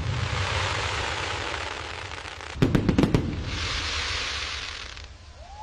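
Aerial fireworks: crackling from earlier bursts fades at the start, then a quick cluster of sharp bangs about two and a half seconds in, followed by a long crackling hiss as the shells' stars burn out.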